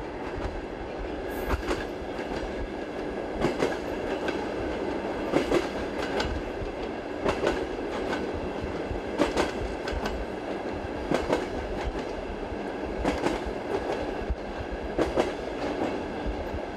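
Train running over jointed rails: a steady rumble with a clickety-clack of wheels over the rail joints, a pair of clicks about every two seconds.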